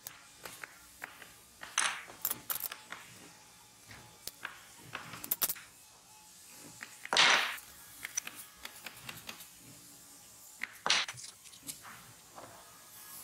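Tool handling on a workbench: scattered taps and clicks as a steel ruler, pencil, wooden blocks and a caliper are picked up and set down, with a few short scraping sounds, the loudest about seven seconds in.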